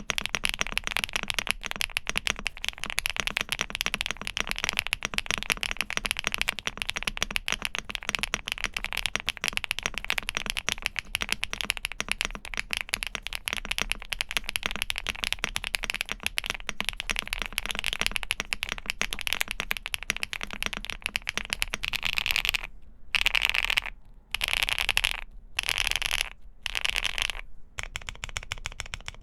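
Bridge75 mechanical keyboard with SC switches being typed on fast, a dense stream of crisp clacky keystrokes. About two-thirds of the way through, the typing breaks into several short bursts of rapid keystrokes with brief pauses between them.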